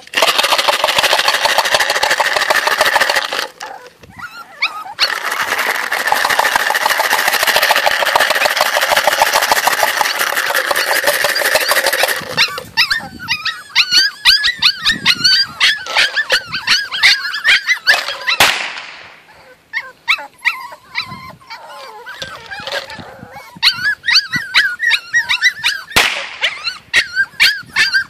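Jagdterrier puppies yipping and whimpering. For the first twelve seconds a loud, harsh rattling noise runs over them, with a short break about four seconds in. Later come two sharp cracks with a short echo, one about two-thirds of the way through and one near the end: gunshots fired to get the puppies used to gunfire.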